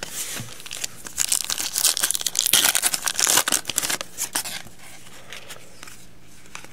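A shiny foil trading-card pack wrapper being torn open and crumpled by hand: a dense crackle that lasts about four seconds, then a few light clicks.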